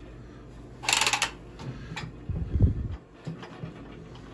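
Handling of a Milwaukee cordless copper tubing cutter as it is clamped onto a copper pipe. There is a short rasp about a second in, a louder low thump a second and a half later, then a few light clicks.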